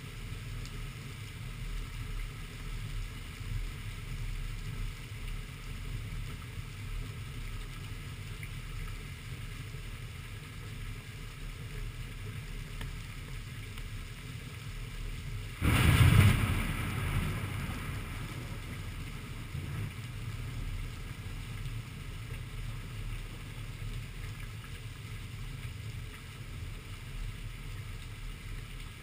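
Steady storm noise of rain and low wind rumble. About 16 seconds in, a sudden loud thunderclap follows a lightning flash, then rumbles and fades over a few seconds.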